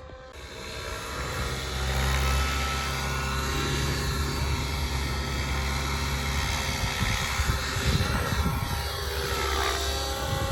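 Radio-controlled scale police helicopter in flight: its rotor and motor whine steadily, swelling over the first two seconds, with a brief shift in pitch near the end.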